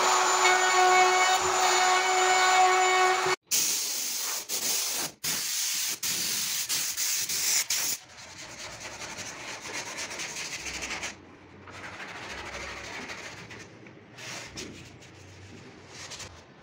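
Woodworking power tool running with a steady high whine, cutting off abruptly about three seconds in. It is followed by several seconds of loud hissing broken by short pauses, then quieter rubbing noise.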